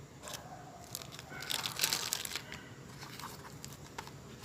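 Packaging being handled and unwrapped, crinkling and rustling in irregular bursts that are loudest around the middle.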